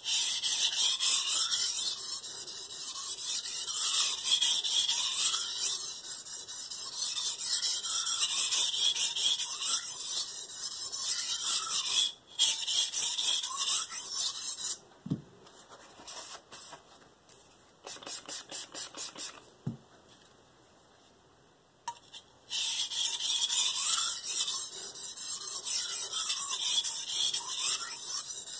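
Steel santoku blade being stroked rapidly back and forth on a Shapton Pro 1000-grit whetstone, a rhythmic rasping scrape, while raising a burr on the edge. Near the middle the scraping stops for several seconds, with only a few light strokes and a couple of soft knocks, then resumes.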